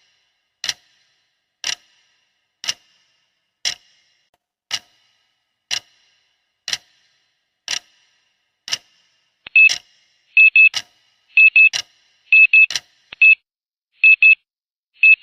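Clock ticking once a second as the countdown timer runs out. About nine seconds in, a loud electronic alarm starts beeping in quick pairs on one high pitch, about a pair a second, and the ticks go on under it for a few seconds.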